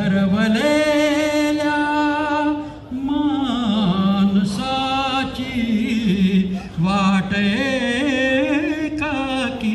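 A man singing unaccompanied into a hand-held microphone, holding long drawn-out notes with a wavering vibrato and gliding between pitches.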